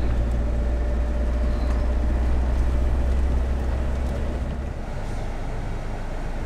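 Steady low rumble of a van's engine and road noise, heard from inside the cab while driving. The deep drone drops off about four and a half seconds in.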